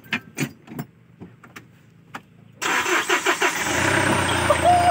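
A few light clicks, then the Kia D4CB four-cylinder common-rail diesel is cranked by the starter and catches after about a second, settling into a steady idle. It starts after its high-pressure fuel pump has been re-timed to cure a crank-no-start.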